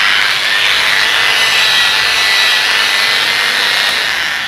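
Angle grinder with no disc fitted, running at reduced speed through a rotary speed regulator: a steady whir with no change in pitch. It begins to die away near the end as the regulator is turned down.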